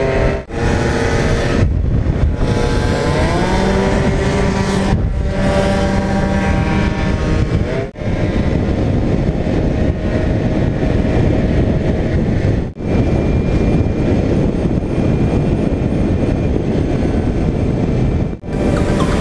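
Two-stroke Yamaha Aerox scooter engines on the move. The pitch rises and falls as the throttle is opened and closed. The sound breaks off for a moment several times.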